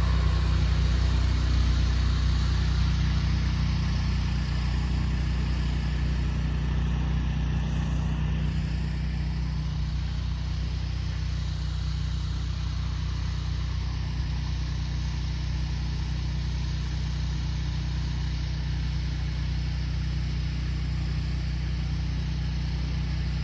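Pressure washer's engine running steadily, with a hiss of water spray from the wand over it.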